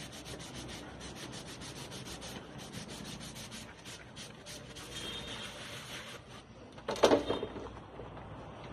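Dishes being washed by hand: a sponge scrubbing plates in quick rough rubbing strokes, with one brief louder sound about seven seconds in.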